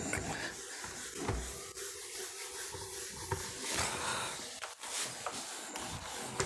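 Quiet room noise: a steady faint hiss with a few soft knocks and a brief rustle.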